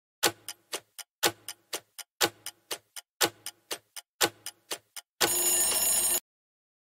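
Quiz countdown-timer sound effect: a clock ticking about four times a second, with a louder tick on each second, for five seconds. The countdown ends with a one-second alarm ring that cuts off suddenly as the timer reaches zero.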